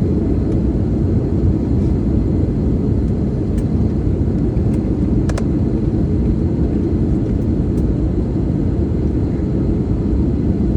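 Steady low rumble of an airliner's engines and rushing air, heard inside the passenger cabin on the approach to landing, with a couple of faint clicks about five seconds in.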